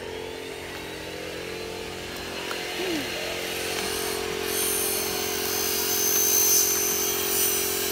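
A motor running with a steady hum, growing somewhat louder in the second half.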